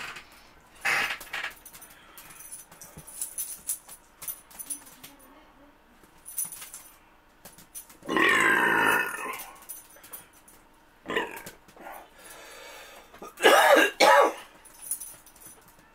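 A man belching loudly, a long belch about eight seconds in and another near the end, with shorter throat sounds between. He is overfull, late in a large fast-food eating challenge.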